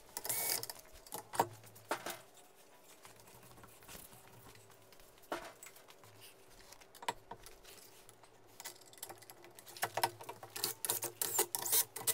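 Scattered metal clicks and clinks of a cylinder head being unclamped from a milling-machine fixture and handled, with a quiet stretch in the middle and a busier run of clinks near the end. A faint steady hum runs underneath.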